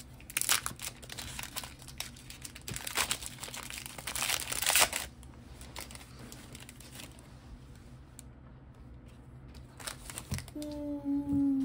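Foil wrapper of a Pokémon trading card booster pack crinkling and tearing as it is ripped open, loudest about five seconds in, then quieter rustling as the cards are slid out. A short voice sound comes near the end.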